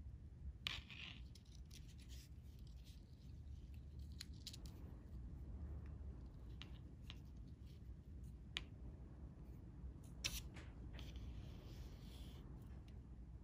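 Fishing line rubbing and sliding through fingers as a knot is tied round a hook: faint scratchy rubs with a few sharp ticks, over a low steady background rumble.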